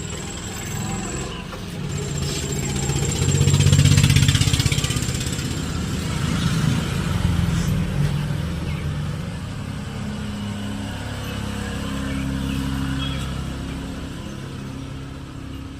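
A motor running with a low hum that swells to its loudest about four seconds in, eases off, then swells again near the end, with a faint thin high whine over it.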